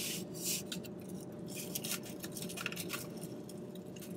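Soft eating noises: a plastic fork picking and scraping at food in a takeout bowl, with scattered small clicks and soft scuffs.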